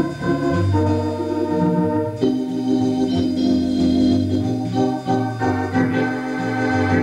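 Wersi Helios electronic organ played in an improvisation: sustained chords held over a bass line that moves to a new note every second or so.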